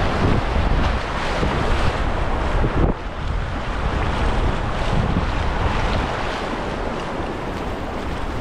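Rushing river current splashing around a whitewater kayak in fast riffles, with wind rumbling on the microphone.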